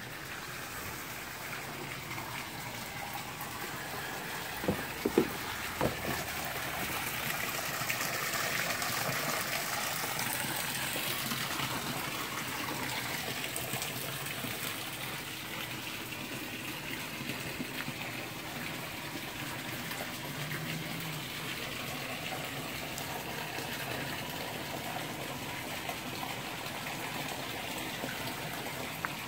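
Steady gush of running water, with a few sharp knocks about five seconds in.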